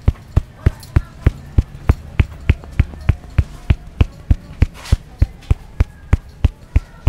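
A barber's fist striking the top of a customer's head in a percussive head massage. The thumps come at an even beat of about three a second.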